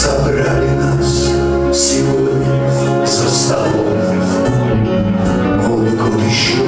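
Live band playing a slow Russian chanson song, with a man singing lead over electric guitar and backing.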